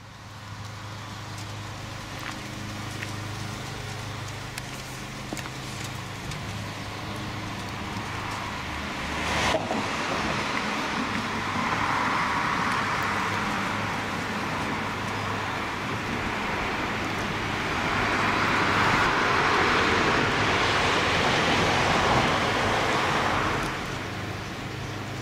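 Road traffic: tyre and engine noise of passing cars over a steady low hum, swelling twice as vehicles go by, with a single sharp click about a third of the way in.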